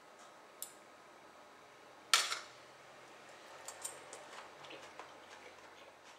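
A metal fork clinking against an earthenware plate: a light tick under a second in, a sharp clatter about two seconds in, then several lighter taps and scrapes.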